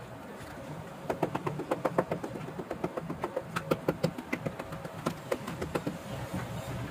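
Small cobbler's hammer tapping quickly on a leather chappal resting on a stone block, several sharp taps a second. It starts about a second in and stops near the end, over a low steady hum.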